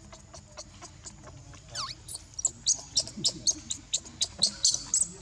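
Baby monkey crying: a falling squeal about two seconds in, then a fast run of short, high-pitched squeaks, about four a second.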